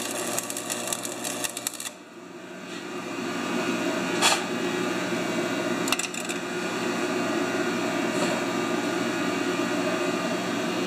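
Stick-welding arc crackling as a bead is laid on a mower's broken axle bracket, stopping about two seconds in. A steady noise follows, ending in a sharp knock at the very end.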